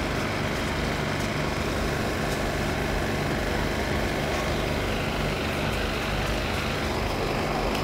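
Steady low rumble of street traffic and idling engines.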